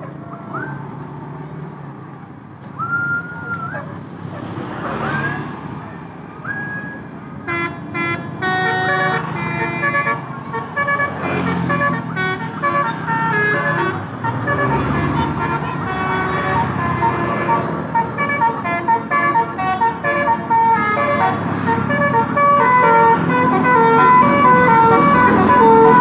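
A Basuri multi-tone telolet horn on a tour coach plays a quick melody of stepped notes from about eight seconds in, after a few short rising toots. The coach's diesel engine runs underneath, getting louder near the end as the coach pulls out and passes close by.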